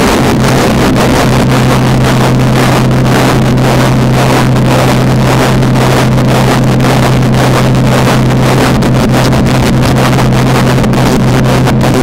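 Loud, steady electronic noise drone: a constant low hum under a dense hiss with irregular crackle.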